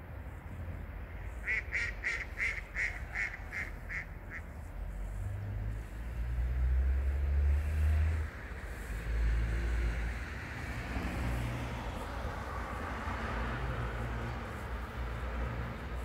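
A wild duck calling a quick run of about nine quacks, about three a second, a second or so in. A low rumble follows for a few seconds, the loudest part, then a steady background hiss.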